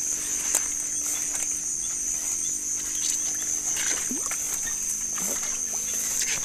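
Steady high-pitched chirring of night insects, with footsteps and rustling through grass. Two brief falling sounds come about a second apart, a little after halfway.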